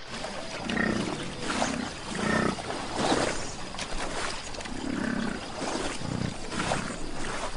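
American bison giving a series of low, rumbling bellows, about seven in all, each under a second long.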